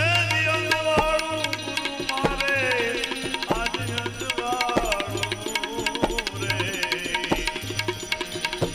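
Bhajan music: tabla keeping a steady beat under a gliding melody line, with no sung words.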